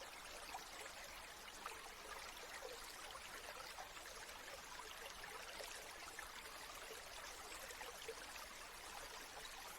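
Quiet water flowing steadily, like a small stream trickling, faint and unchanging.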